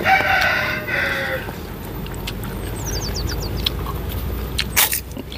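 A farm animal bleating once, a pitched call lasting about a second and a half. About three seconds in comes a quick run of high bird chirps.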